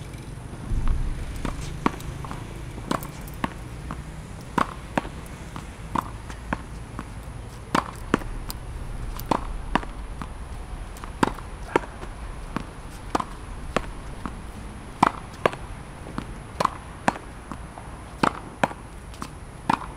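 Tennis ball being hit against a practice wall: sharp knocks, often in pairs about half a second apart, repeating about every second and a half as the rally goes on.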